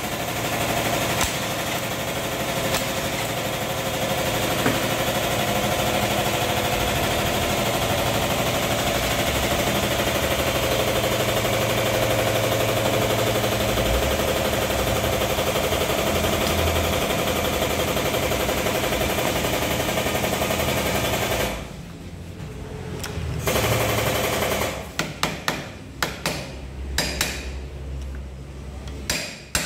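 A rapid, steady mechanical rattle runs for about twenty seconds and then stops. It is followed by a short burst and then a series of sharp metal knocks and clicks from hand tools.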